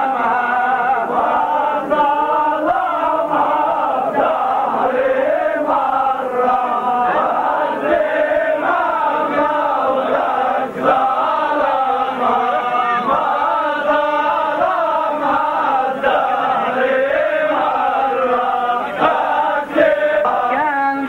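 A group of men chanting together in unison, a Lebanese zajal refrain sung as a lament. The overlapping voices waver up and down without a break.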